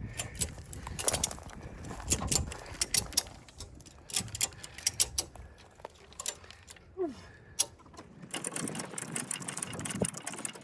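Ratchet tie-down strap being cranked, its pawl clicking in quick irregular runs that grow denser near the end, as the strap is tensioned to drag a stuck Jeep sideways.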